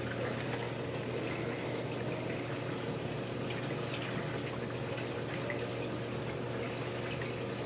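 Saltwater reef aquarium's circulating water running steadily, a continuous trickling and splashing, with a steady low hum underneath.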